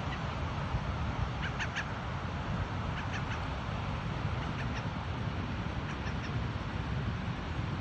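Wind buffeting the microphone over rough surf, with short bird calls heard about four times.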